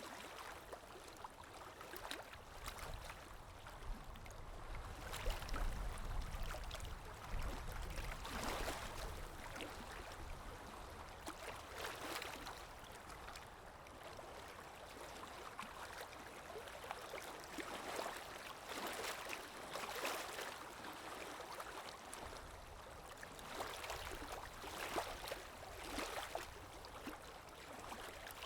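Calm sea waves lapping and washing ashore, a soft wash swelling and fading every few seconds, with a low rumble of surf for a few seconds near the start.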